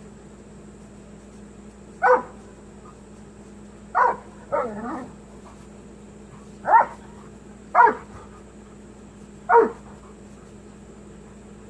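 A Doberman barking: five short, sharp barks spaced one to three seconds apart, with a lower, drawn-out bark just after the second.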